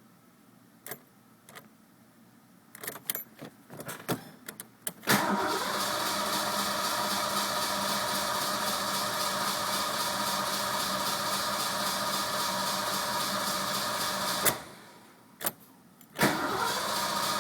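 Ford Mustang 5.0 V8 being started with the key. A few light clicks come first, then about five seconds in the engine comes on suddenly and runs steadily for about nine seconds before cutting off. After more clicks it comes on again near the end. The car starts only with difficulty, and the owner suspects an ignition fault.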